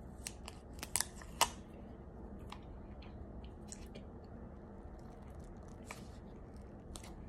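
Scattered sharp clicks and taps from a small plastic jar being handled and its screw lid twisted, the loudest pair about a second in. A faint steady hum runs underneath.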